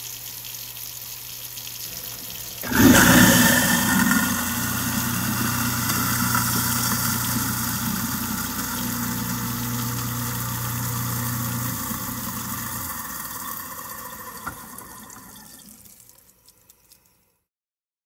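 Kitchen sink garbage disposal running with a steady motor hum. About three seconds in, running water comes in much louder, rushing and churning down the drain with the disposal. The hum stops about thirteen seconds in, and the water sound dies away over the next few seconds.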